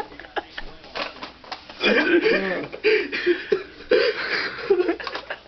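Scattered clicks and knocks with short bursts of a person's voice, about two seconds in and again near the end.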